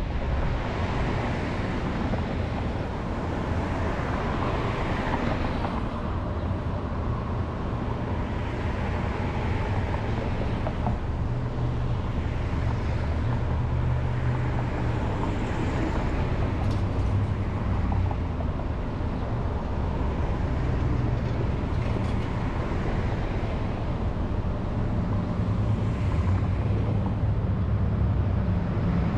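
Car engine and tyre noise as the car is driven at low speed, a steady low hum that grows slightly louder near the end.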